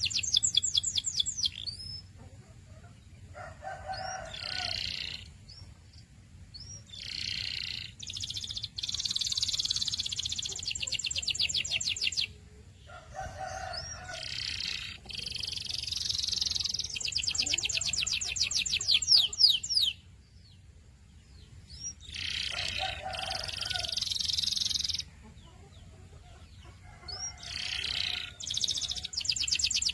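Domestic canary singing: phrase after phrase of fast, evenly repeated high notes, rolls and trills, with short pauses of a second or two between phrases.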